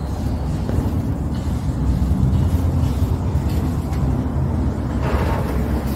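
Steady low mechanical rumble, like a running engine.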